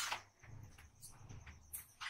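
Close-up eating sounds of a man eating rice with dal by hand: a sharp mouth smack right at the start, faint low chewing, and another short smack near the end.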